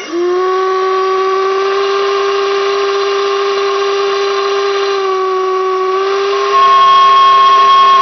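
Homemade whistle made from a propane cylinder, blown on compressed air from an air compressor: a steady deep tone with several overtones that starts suddenly. About six and a half seconds in it turns louder and higher-sounding as the air pressure is raised toward 40 psi and the whistle begins to overblow.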